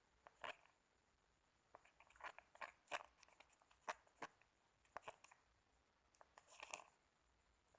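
Faint, irregular sticky clicks and crackles of homemade slime being squished and handled.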